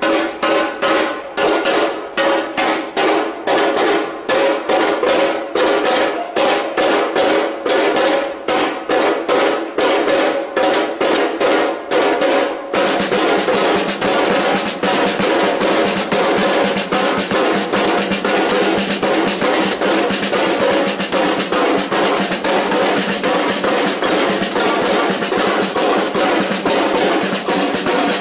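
Batucada percussion band playing Brazilian samba drums. It starts as a beat of separate strokes about three a second, then changes abruptly about halfway through to dense, continuous drumming.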